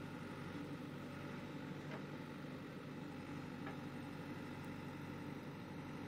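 JCB 3DX backhoe loader's diesel engine running steadily while the backhoe arm lifts a full bucket of soil, with two faint clicks about two and three and a half seconds in.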